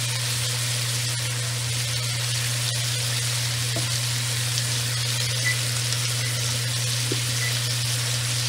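A sous-vide New York strip steak searing in a very hot pan of rendered beef fat and butter, with a steady sizzle. A steady low hum runs underneath.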